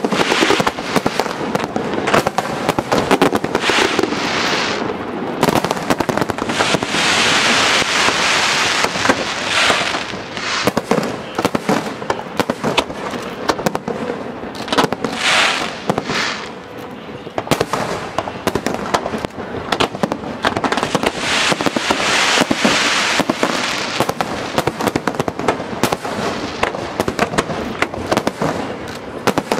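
Fireworks display: aerial shells bursting one after another in a continuous barrage of sharp reports. Several times the reports give way to a dense crackling hiss lasting a second or two, from glittering crackle stars.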